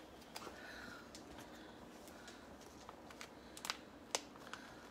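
Plastic wrapping on a package of sausage being cut and pulled open, heard as faint crinkling and a few sharp small clicks, the loudest ones near the end.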